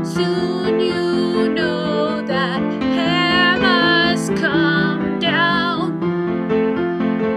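A gentle song: a woman sings with vibrato over a steady instrumental accompaniment. Her voice stops about six seconds in, leaving the accompaniment playing on alone.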